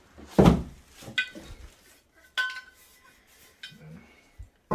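Porcelain toilet tank lid being handled: a dull thump, then three short ringing clinks about a second apart as the lid knocks against the tank.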